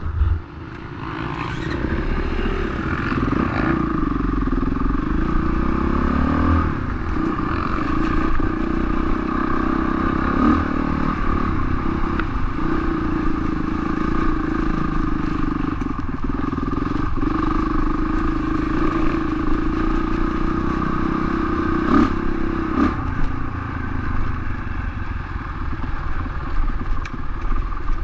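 Honda CRF450R's single-cylinder four-stroke engine running under load, heard from onboard the bike, its pitch rising and falling with the throttle. It briefly drops off just after the start, then pulls again, with a few sharp knocks over the ride.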